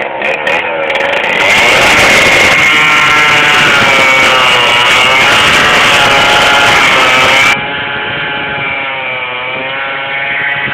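Handheld petrol-engine cutter running at high speed, its pitch repeatedly dipping and rising as it is pushed into a steel rail-track bolt. It is loudest from about a second and a half in until about two-thirds of the way through, then somewhat quieter.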